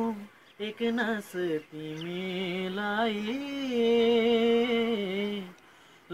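A man singing a Nepali song unaccompanied, drawing out long held notes, with short breaks between phrases about half a second in and near the end.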